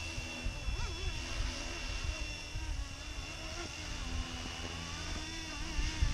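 Flywing FW450 electric RC helicopter in flight: the rotor and motor make a steady whirring whine whose pitch wavers up and down.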